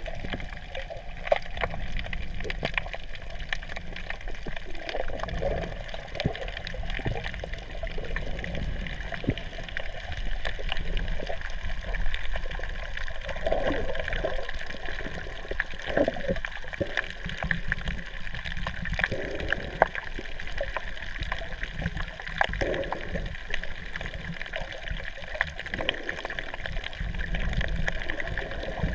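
Muffled underwater sound from a camera held below the surface: water sloshing and gurgling, with irregular swells and scattered small clicks.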